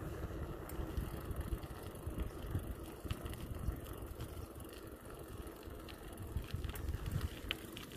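Bicycle ridden along a paved road: an uneven low rumble of wind on the microphone and tyre noise, with a few faint clicks and rattles from the bike.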